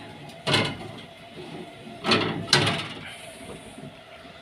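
Metal pizza pan and oven rack clattering and scraping as the pan is pushed into the oven: one scrape about half a second in, then two more in quick succession around two seconds in.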